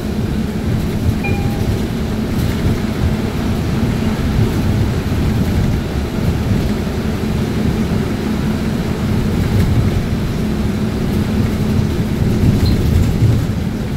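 Steady low rumble of a transit bus's engine and tyres on a wet road, heard from inside the passenger cabin, with a faint steady hum underneath.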